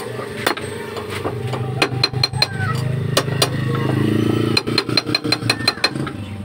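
An engine runs nearby, its drone swelling louder for a few seconds and then easing off. Sharp metallic taps sound throughout, coming quickly, about five a second, near the end.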